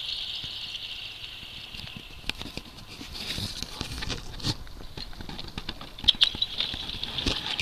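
Kayak paddling: the paddle dipping and water dripping, heard as scattered light ticks and clicks with a few soft thuds. A high hiss fades in the first couple of seconds and returns about six seconds in.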